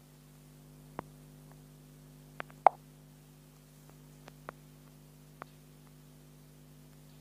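A handful of sharp clicks scattered through, the loudest a short pop about two and a half seconds in, over a steady low electrical hum.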